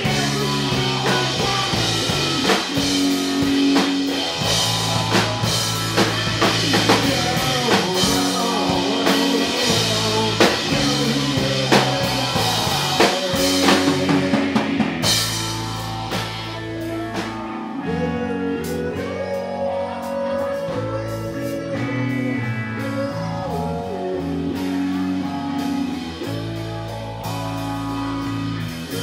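Live rock band playing: electric guitar, bass guitar and a drum kit, with a singer at the microphone. About halfway through, the drums drop back and the guitar and bass carry on more quietly.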